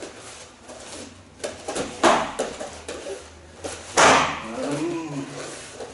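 Kicks smacking into padded spherical glove mitts: two loud strikes about two seconds and four seconds in, with fainter knocks between.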